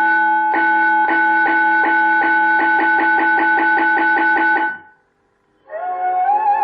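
Automatic school bell unit playing its 'traditional' bell sound: a metal bell struck over and over, about three strikes a second, with a steady ringing tone. It stops about five seconds in. After a short pause, flute music starts near the end, the opening of the prayer.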